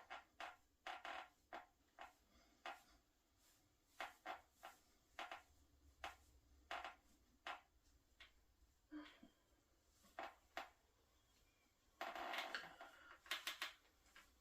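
Hands working over a person's body and clothing during a massage: soft, irregular short brushing and tapping sounds, with a longer rustle about twelve seconds in.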